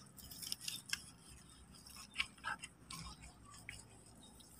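Faint, scattered small clicks and wet scratches of hands digging into soft mangrove mud to reach a razor clam burrow.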